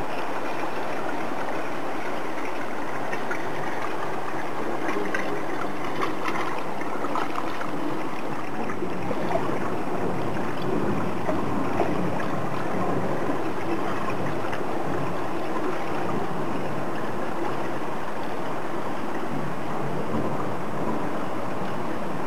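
Steady running water, a continuous rush with small scattered splashes.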